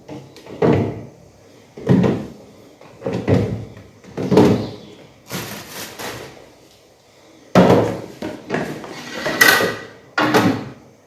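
Plastic storage containers being set into refrigerator shelves: a series of about eight knocks and scrapes of plastic on plastic, roughly a second apart.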